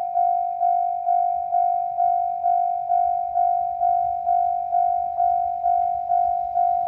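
Japanese railroad crossing alarm ringing: a single-pitched ding repeated about twice a second, each strike fading quickly before the next. It is the warning that a train is approaching the crossing.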